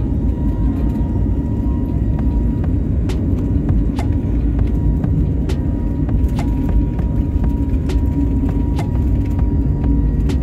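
Jet airliner's turbofan engines roaring at takeoff thrust, heard from inside the cabin during the takeoff roll: a loud, steady low rumble with a thin steady whine. From about three seconds in, sharp knocks come every second or so.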